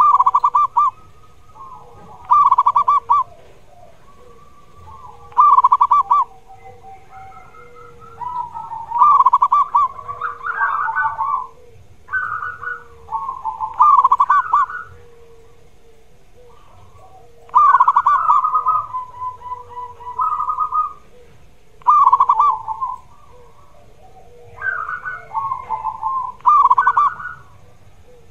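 Zebra dove (perkutut) cooing: phrases of quick, trilled coos, one about every three to four seconds, some running on into longer strings. Underneath, a fainter, lower note repeats steadily.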